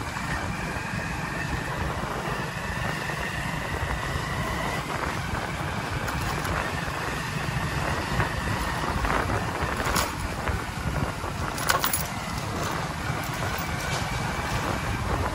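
Motorcycle riding along at low speed: a steady engine-and-road rumble with a faint steady whine. A couple of sharp clicks or rattles come about two-thirds of the way through.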